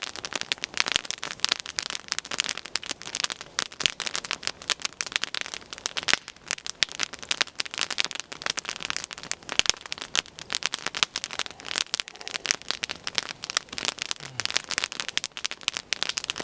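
Wood campfire, a top-down 'upside-down' fire of stacked logs, crackling steadily with many sharp, irregular snaps.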